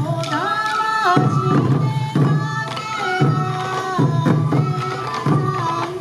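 Sansa odori festival music: waist-worn taiko drums beat about once a second under a high melody that holds notes and slides between them.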